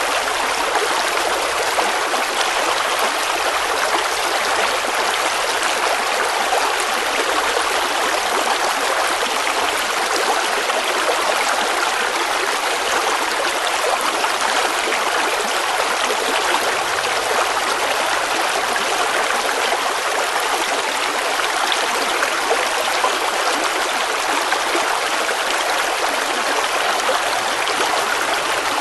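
River water flowing and babbling over stones, a steady rushing with fine trickling.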